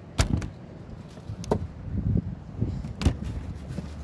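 Knocks and thumps of fish and ice being shifted by hand in a wooden fish box: a handful of sharp knocks, the loudest about three seconds in, over a steady low rumble.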